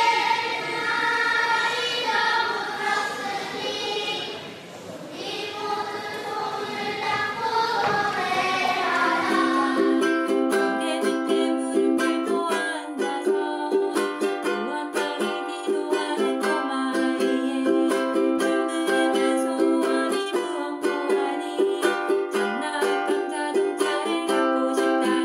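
A children's choir singing a Korean children's song. About ten seconds in it gives way to a woman singing the same song to her own strummed ukulele.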